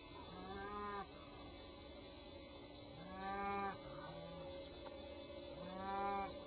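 Cattle mooing: four short moos, each under a second, two of them back to back midway.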